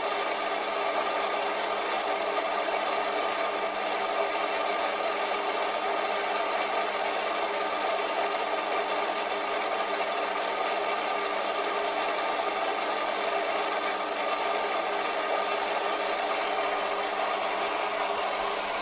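Steady, unbroken static hiss at a fairly high level, with one faint tick about four seconds in.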